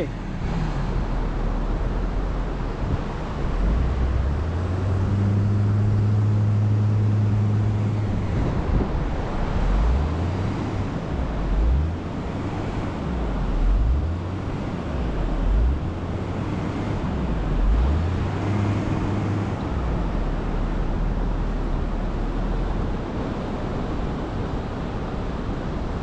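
Pickup truck and SUV engines working to free a truck stuck in deep beach sand. A steady low engine hum gives way to repeated revving up and down, about every two seconds for some ten seconds in the middle, as the wheels spin in the soft sand under tow. The engines then settle back to a steady hum.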